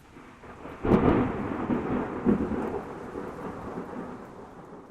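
A thunderclap: a sudden crack about a second in, then a long rolling rumble that swells again and slowly fades.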